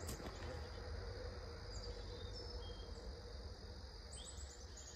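Outdoor ambience: insects chirring steadily, with a few short high bird chirps and a quick run of them near the end, over a low steady rumble.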